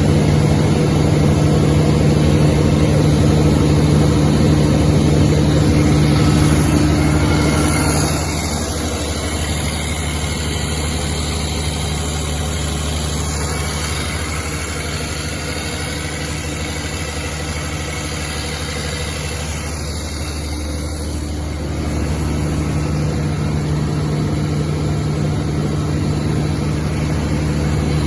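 200 kVA FG Wilson diesel generator set running at a steady speed with an even drone. It turns quieter about eight seconds in and louder again about twenty-two seconds in.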